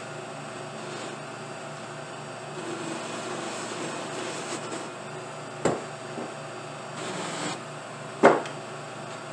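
Lathe-mounted cloth buffing wheels spinning with a steady motor hum. Two sharp knocks stand out, one a little past halfway and a louder one near the end.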